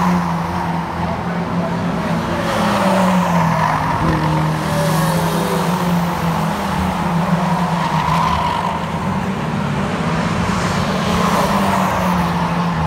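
Saloon stock cars racing round the oval, a pack of engines running hard, with several cars passing one after another. The engine note swells and fades with each pass.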